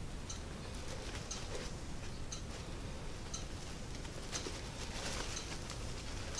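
Soft rustling of the backpack's nylon fabric and thread as half-hitch knots are tied off by hand, a little louder about five seconds in. A light tick repeats about once a second.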